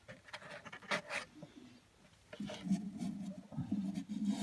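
A few clicks and scrapes as a loudspeaker driver is handled, then a low, wavering voice-like hum for about two seconds near the end.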